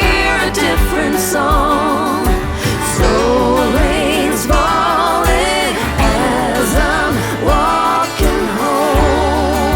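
Background song: a singing voice holding long wavering notes over bass and a steady drum beat.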